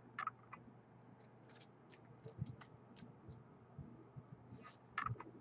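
Faint scattered clicks and light taps from small objects being handled, a few near the start, more about two to three seconds in and another cluster about five seconds in, over a low steady hum.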